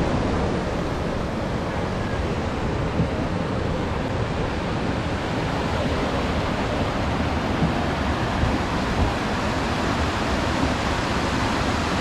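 Creek water rushing steadily over rocks and small cascades.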